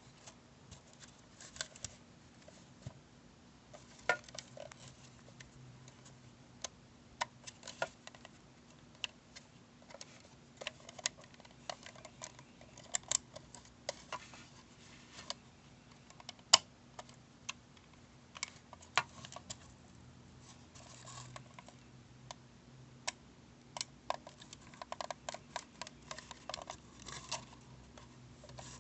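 Scattered sharp clicks and light clatter of small hard objects being handled, irregular and busiest near the end, over a faint steady low hum.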